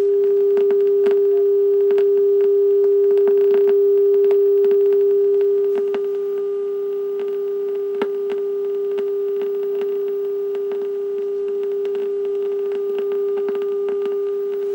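Steady low-pitched tone, one unbroken pitch with faint overtones, playing from the audio track of a 1986 View-Master Video VHS tape over the black screen at the end of the tape, with scattered crackling clicks of tape noise. It drops a little in level about six seconds in.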